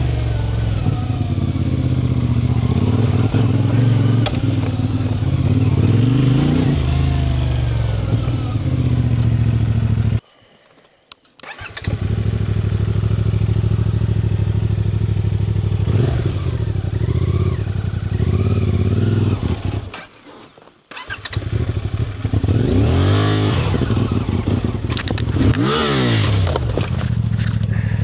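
A small vehicle engine, of the motorcycle kind, running steadily, cutting out abruptly twice for about a second. Near the end its pitch rises and falls several times as it is revved.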